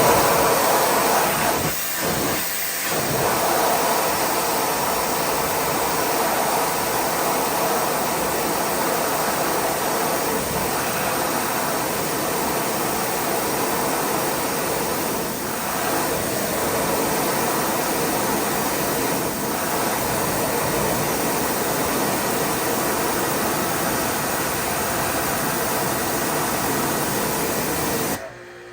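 Pressure washer running and spraying a jet of water onto a motorcycle chain to rinse off the cleaner and dirt. It is steady, with a couple of brief dips about two seconds in, and cuts off suddenly near the end.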